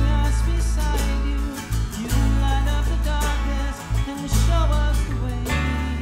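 Live acoustic band music: a man singing over a strummed twelve-string acoustic guitar, with deep bass notes underneath.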